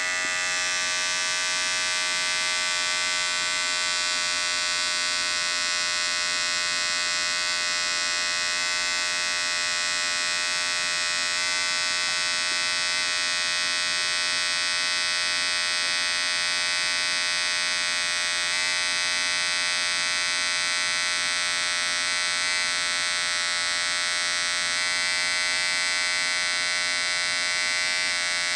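Remington electric hair trimmer running with a steady, unchanging buzz.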